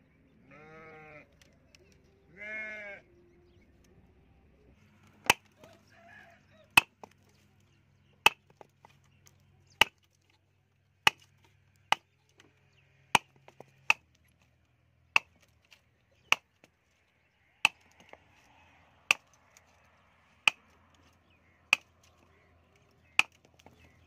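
Two short bleats from a farm animal in the first three seconds. From about five seconds in, a hand tool such as a hammer strikes bamboo on a wooden block in sharp single knocks, one roughly every second and a half, about fifteen in all.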